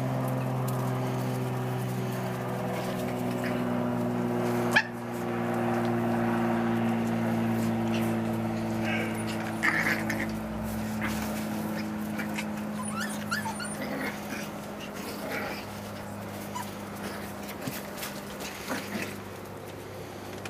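Puppies yipping and whimpering now and then as they play, over a steady mechanical hum that slowly fades. A sharp knock comes about five seconds in.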